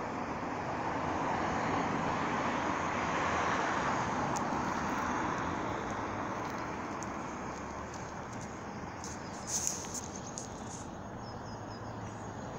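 Steady rumble of traffic that swells as a vehicle goes by a few seconds in, then eases. About ten seconds in comes a brief clatter of sharp clicks.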